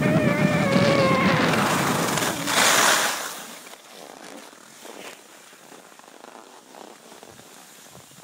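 Wind buffeting the microphone and skis hissing over hard-packed snow during a descent, with a short falling pitched tone in the first second and a sharp scraping hiss at about three seconds. After that the sound drops to a faint hiss of snow.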